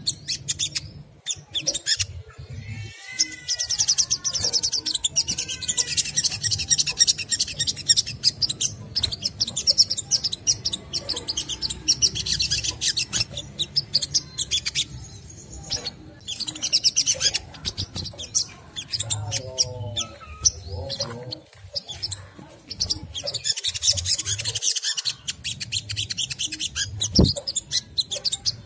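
Olive-backed sunbird giving a rapid, very high-pitched twittering chatter in bursts with short gaps, the kind of call played as a lure to set other sunbirds singing.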